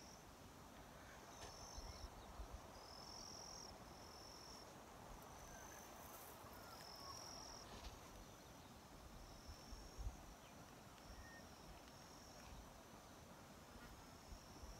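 Faint insects calling in short, steady, high-pitched phrases repeated every second or so, over low wind rumble on the microphone.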